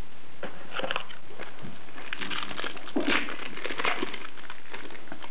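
Foil wrapper of an Upper Deck Trilogy trading-card pack crinkling and crackling as it is opened and handled, in uneven bursts that are loudest about three seconds in.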